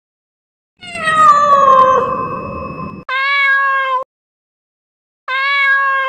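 Domestic cat meowing: a long meow that falls in pitch starts about a second in and is cut straight into a shorter, steady meow; near the end the same short meow comes again. Each call starts and stops abruptly, with dead silence between.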